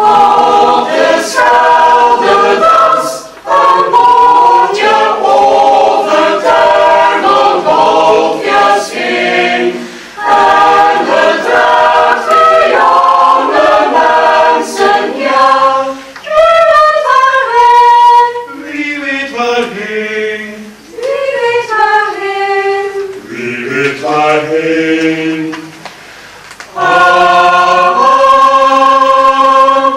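Mixed chamber choir singing a song in phrases, with short breaks between them; a lower-pitched passage comes about two-thirds of the way through.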